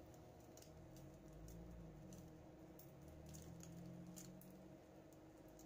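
Faint crackling of hot oil under a folded omelet in a nonstick frying pan: scattered small pops, a few a second, over a low steady hum.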